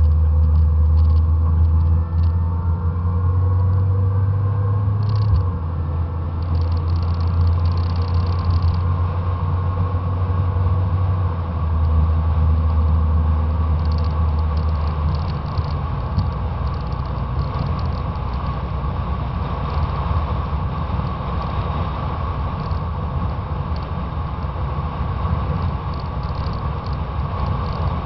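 Fox-body Mustang's 5.0 V8 running as the car drives along, heard from outside the car with wind rumbling over the fender-mounted camera. A deep engine drone that steps in level a couple of times gives way about halfway through to a steady wind and road rumble.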